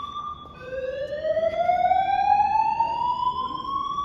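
Building fire alarm sounding a slow whoop evacuation tone: one tone glides steadily upward for about three and a half seconds, cuts off, and starts again low about half a second in.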